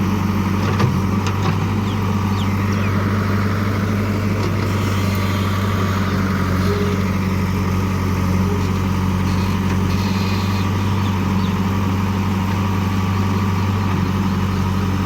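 JCB digger's diesel engine running steadily at a low, even pitch, with one short knock about a second in.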